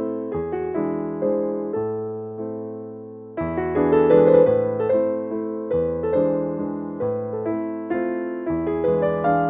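Background piano music: a gentle melody over chords, each note fading after it is struck. After a softer stretch, a louder passage comes in about three and a half seconds in.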